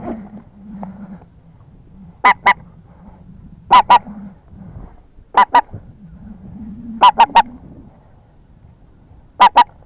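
Geese honking: five loud bursts of two or three short calls each, spaced a couple of seconds apart.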